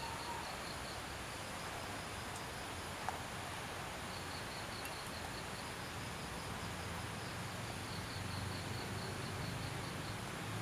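Outdoor ambience: an insect chirping in short runs of rapid pulses over a steady background hiss, with a single faint click about three seconds in.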